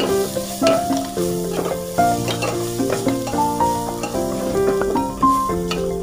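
Onion, carrot and tomato sizzling in hot oil in an aluminium pot while a metal ladle stirs them, scraping and clinking against the pot a few times, mostly in the first half. Background music plays over it.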